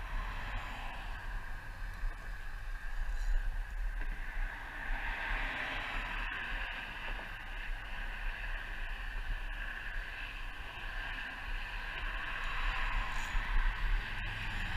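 Steady outdoor ambience: a low wind rumble on the microphone over a continuous hiss, with a couple of faint clicks.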